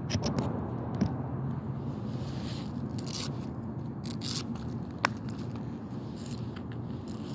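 Phone handling noise: fingers shifting on the phone make scattered clicks and short scraping rustles over a steady low rumble.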